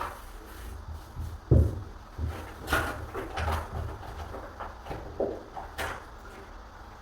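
Irregular knocks, taps and clicks of hands and tools working on a wooden door, with one heavier thump about a second and a half in.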